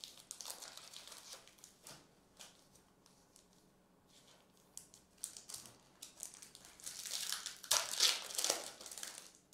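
A foil trading-card pack wrapper being crinkled and torn open by hand. There are light crackles at first, then a louder run of crinkling and tearing from about seven to nine seconds in.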